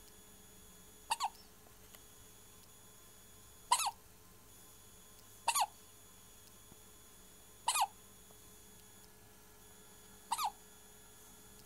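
A bout of hiccups: five short hics, irregularly spaced two to three seconds apart.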